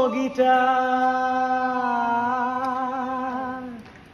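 A man singing unaccompanied, holding one long note for about three seconds with a slight waver before it fades out near the end.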